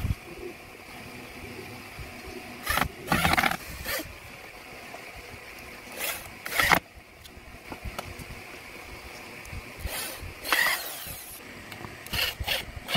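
Corded electric drill running in short bursts into wood, four times, one run rising in pitch as the motor speeds up, as screws and holes go into the wooden scooter fork.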